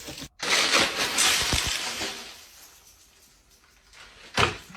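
Dry penne pasta spilling all at once out of its box onto a hard surface, a clatter that starts abruptly and dies away over about two seconds. A single sharp knock near the end.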